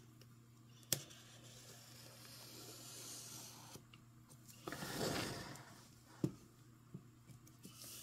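Faint scraping and rubbing of a tool and fingers over a plastic-wrapped hair dryer box, swelling louder about five seconds in, with a couple of small clicks.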